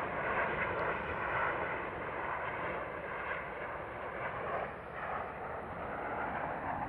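Jet engine noise from a formation of aerobatic jet aircraft flying past: a steady, even rush with no distinct tone.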